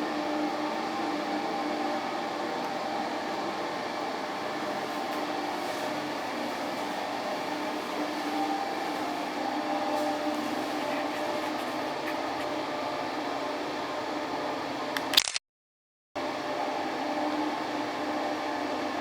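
Steady mechanical hum with a few constant faint tones in it. About fifteen seconds in there is a brief click, then it cuts to silence for under a second before the hum returns.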